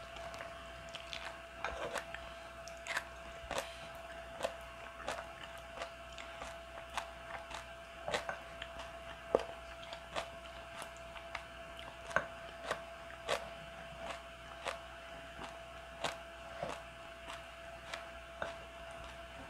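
Close-miked eating of bean sprout and carrot porridge: chewing and small mouth sounds, with a wooden spoon clicking and scraping in the bowl, a short sharp click every second or so. A faint steady hum runs underneath.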